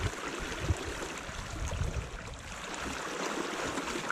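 Small sea waves lapping and washing against a kayak hull: a steady wash of water with irregular low knocks.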